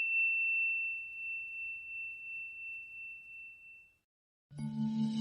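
A bell's single high, pure tone, struck just before, slowly dying away over about four seconds. Near the end a musical intro comes in with a low steady drone.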